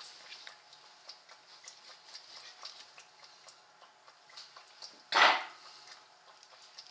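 Wooden balance board rocking on a tiled floor under a baby's feet: small scattered clicks, then one loud, short clunk about five seconds in as the board tips.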